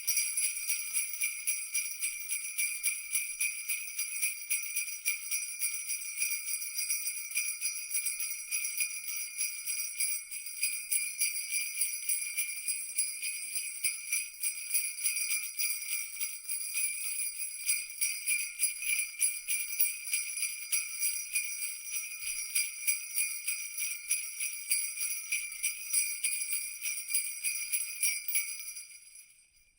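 Jingle bells shaken steadily, a dense, bright jingling that fades out near the end.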